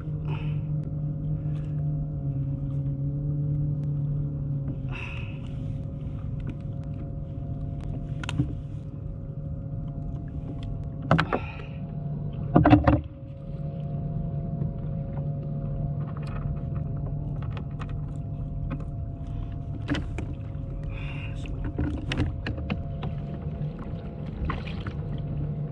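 A steady low motor hum with a few held tones throughout, under scattered knocks and clatters from a grouper and a lip-grip tool being handled on a plastic kayak. The loudest knocks come about 11 and 13 seconds in.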